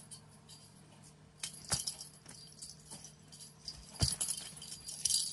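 Light metallic jingling and rattling from cats batting and grabbing at a toy, in two bursts: one about one and a half seconds in and a louder one from about four seconds. Each burst starts with a soft knock.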